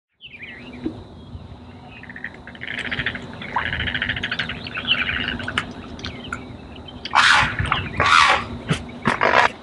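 Marsh birds calling: thin whistles, then a stretch of rapid chattering trills, and near the end three loud harsh squawks, the loudest sounds.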